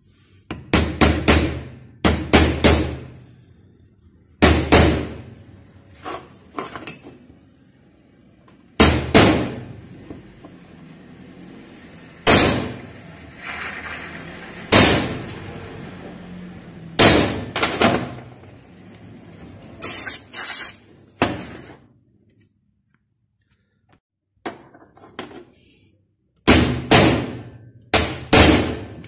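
Hammer blows on metal, in short clusters of two to four quick strikes with pauses between, as parts of a brush cutter's small engine are tapped into place during reassembly.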